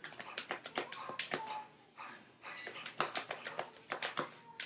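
A quick, irregular run of light clicks and flicks from tarot cards being handled and shuffled, with a short pause about two seconds in.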